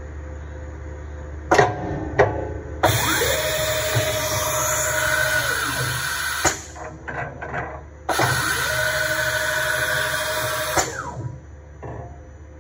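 CNC mill tool change driven by air solenoid valves. Two sharp clicks come first. Then there are two spells of loud compressed-air hiss, each a few seconds long, with a short break between them. Under each spell a motor whine rises, holds steady and drops as the head moves.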